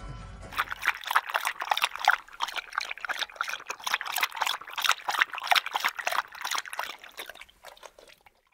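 Akita lapping water from a stainless-steel bowl, a quick, even run of wet slurping laps that fades out near the end.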